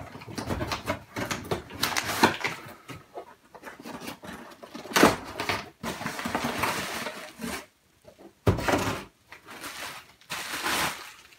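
Cardboard boxes and plastic bubble-wrap packaging being handled: irregular rustling and scraping with a few sharp knocks, as a small box is lifted out and the bagged transmitter is pulled free.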